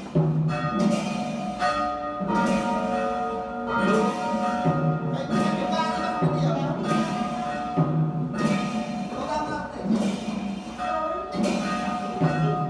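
Church bells tolling a requiem knell, the ringing for a death: the bells are struck again and again, each stroke ringing on into the next.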